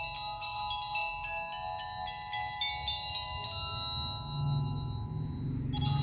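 Samsung Galaxy Young S6310 ringtone playing: a short electronic melody of bell-like notes. The notes are quick at first, then held longer, and the tune changes abruptly near the end.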